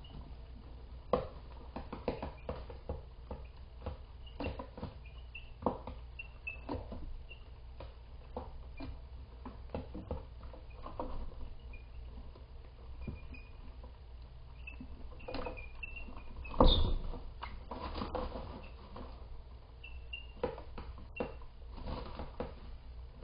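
Young Deathlayer chickens cheeping softly with short high peeps, amid scratching and pecking clicks on the floor of their pen. A louder knock comes about 17 seconds in.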